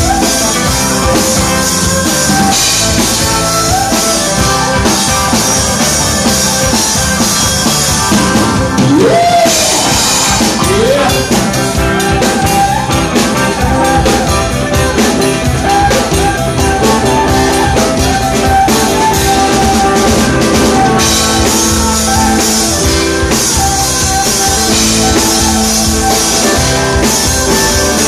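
Live rock band playing loudly: electric guitar over a drum kit.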